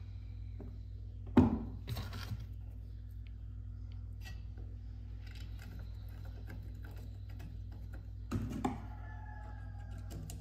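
Steel parts knocking and clinking as a flat steel link bar is handled against a metal frame: one sharp clank about a second and a half in with a couple of lighter knocks after it, and a pair of knocks near the end followed by a short metallic ring. A steady low hum underlies it.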